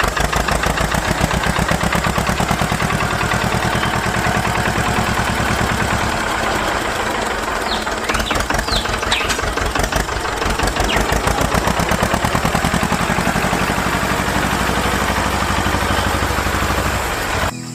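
A small engine running steadily with a rapid, even pulse; it cuts off abruptly near the end.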